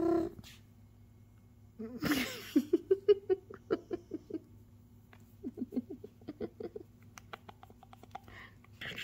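Three-week-old calico kitten's play noises as it wrestles a hand: a short hissing burst about two seconds in, then two runs of quick, short growling pulses.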